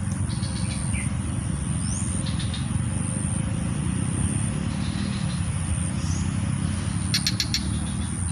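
Outdoor ambience: a steady low rumble with a constant high-pitched insect buzz and a few short bird chirps, including a quick chattering run of notes near the end.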